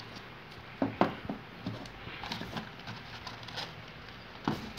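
Handling noise from a smartphone and its cardboard box being picked up and set down: a handful of short taps and knocks, the loudest about a second in and another near the end.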